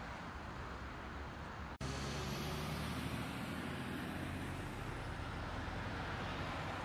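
Steady idling engine and background vehicle rumble picked up by a dashcam microphone. About two seconds in, the sound drops out abruptly at a cut in the recording, then returns slightly louder with a low hum.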